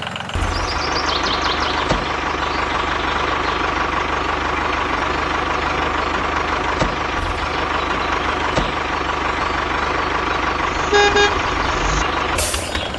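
A motor running steadily, with a short horn toot about eleven seconds in and a brief hiss just before the end.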